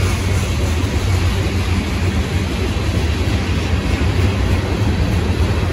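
Freight cars of a CSX manifest train, boxcars and tank cars, rolling past close by: a loud, steady rumble of steel wheels on the rails.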